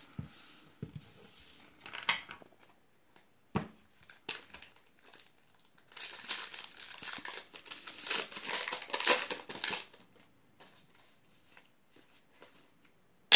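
Foil wrapper of a Magic: The Gathering booster pack being torn open and crinkled. The crinkling is loudest about six to ten seconds in, after a few light ticks and rustles of cards being handled.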